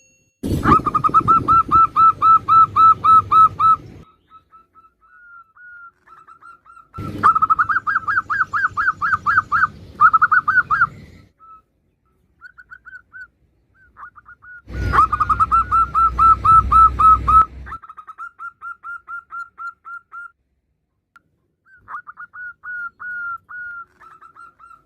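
Female zebra dove calling: fast runs of short staccato notes, about seven a second, three loud runs of about three seconds each with a low rumble under them, and softer scattered notes in between.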